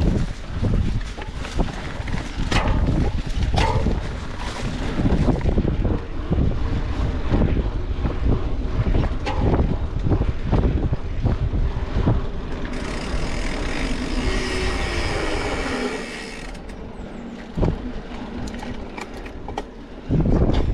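Mountain bike ridden over a dirt trail: steady tyre rumble with frequent knocks and rattles of the bike over bumps.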